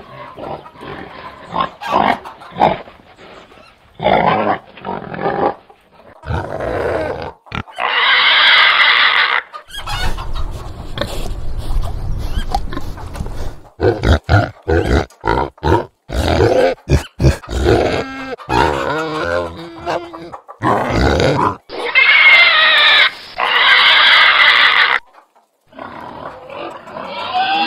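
Pigs grunting in short, irregular bursts, with a long high squeal about eight seconds in and two more squeals near the end.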